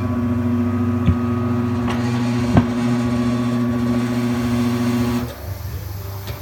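A machine motor running with a steady hum, with a few sharp knocks over it, that cuts off about five seconds in.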